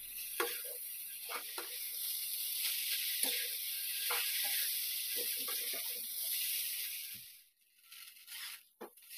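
Rice vermicelli with carrot and wood ear mushroom sizzling in a non-stick wok as it is stirred and tossed with a spatula, with short soft scrapes of the spatula. The sizzle cuts off about seven and a half seconds in, and one brief scrape follows just before the end.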